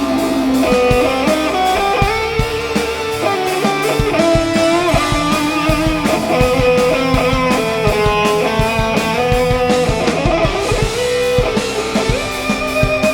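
Live electric guitar solo over a rock band, a sliding, bending lead melody with drums hitting behind it.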